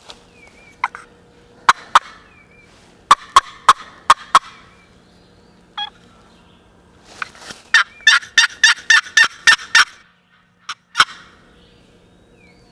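Wild turkey gobbler gobbling: a rapid rattling run of notes lasting about two seconds, after a series of sharp, loud clicks.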